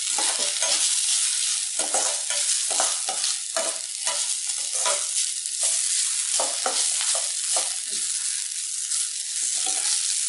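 Grated amla, onions and thuthuvalai leaves sizzling in oil in a stainless steel kadai while being sautéed. A perforated steel ladle scrapes across the pan in irregular strokes over a steady sizzle.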